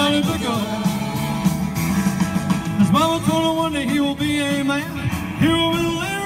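Rock-and-roll music with a man singing live into a microphone over a backing track with guitar, played through PA speakers; the vocal lines come in about halfway through.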